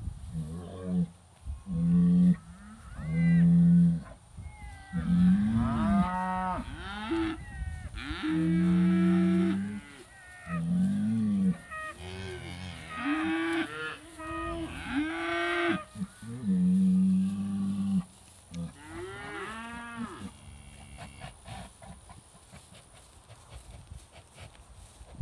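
British White cows mooing again and again, several long calls rising and falling and often overlapping: the herd riled up over an old cow hide hung on the hay ring. The calls stop near the end.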